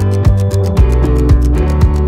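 Background music with a steady beat, a bass line and sustained notes.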